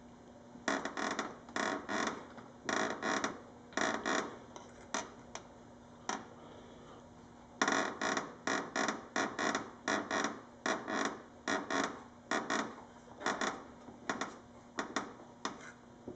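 Dodge Charger's front bumper fascia creaking, a long run of short creaks coming in quick clusters, with a pause about six seconds in. A faint steady hum runs underneath.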